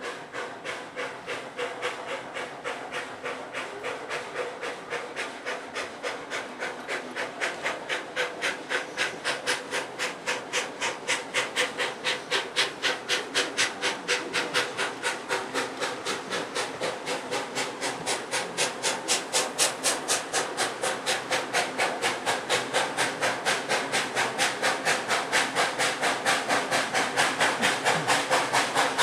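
Canadian National 7470, a 0-6-0 steam locomotive, approaching with a steady rhythm of exhaust chuffs, about three a second, growing gradually louder.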